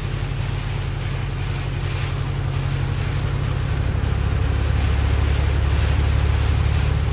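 Steady drone of a vehicle being driven, heard from inside the cab: a low engine hum with road and wind noise over it. It gets slightly louder about halfway through.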